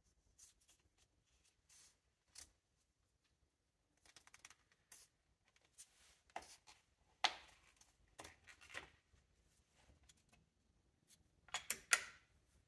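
Hands working a drive belt onto the pulleys of a Mercedes OM606 diesel engine that is not running: scattered soft rubs, clicks and knocks, with a quick cluster of sharper clicks near the end.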